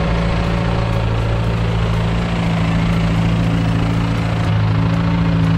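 1963 Ford 2000 tractor engine running steadily while the tractor plows snow, getting a little louder about four seconds in as it passes close by.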